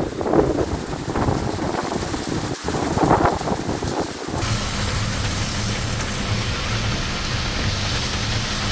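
Heavy rain pouring down onto a street and parked cars. About four seconds in it gives way to a steadier hiss of rain and wet road traffic with a low engine hum.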